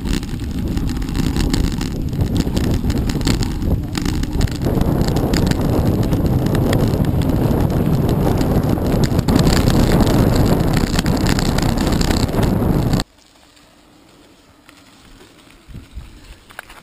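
Wind buffeting the microphone of a camera riding on a mountain bike, mixed with tyre rumble and rattling over a gravel road. It cuts off suddenly about 13 seconds in, leaving a much quieter scene with a few faint ticks.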